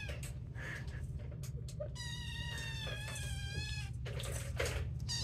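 A kitten meowing for attention: one long, high-pitched, wavering meow in the middle, with the end of one cry at the start and the next starting near the end.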